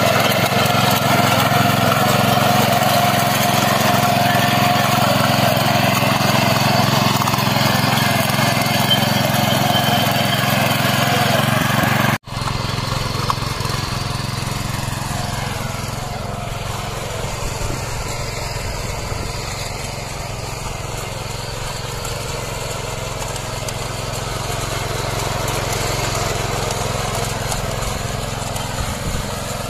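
Kisankraft KK-IC-212P power weeder's 7 hp four-stroke engine running steadily under load as its rotary tines till dry soil. The sound breaks off for an instant about twelve seconds in and then carries on a little quieter.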